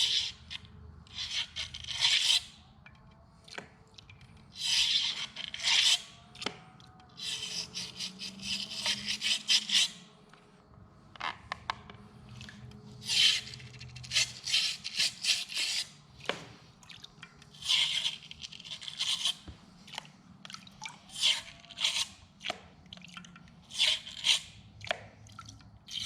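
An engine case being washed: irregular hissing bursts from the cleaning work, some brief and some a second or two long.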